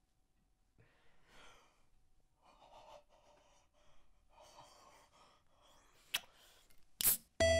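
A young man's faint breathing and sighs, with an open-mouthed gasp. About six seconds in comes a sharp click, then a short loud burst, and just before the end chiptune-style video-game music starts.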